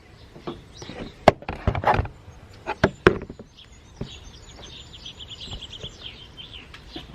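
A few sharp knocks and clicks from hands working on parts, most in the first three seconds. From about four seconds in, a songbird chirps in a quick run of repeated high notes.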